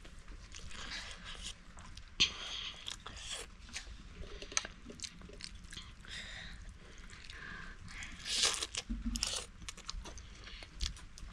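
A person eating, chewing and crunching food in irregular crunches and clicks, with a louder cluster about two seconds in and again around eight to nine seconds in.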